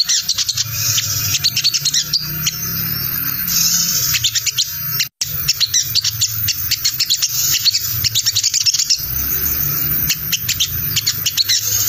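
Olive-backed sunbird (sogon) giving its rapid scratchy 'ngriwik' chatter: fast runs of high chips in close bursts, with a brief silent break about five seconds in. This is the call that bird keepers play as a lure, because other sunbirds answer it.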